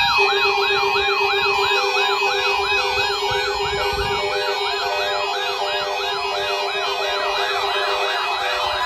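Electronic yelp siren: a rapid rise-and-fall wail repeating about two and a half times a second, over a steady pulsing low tone.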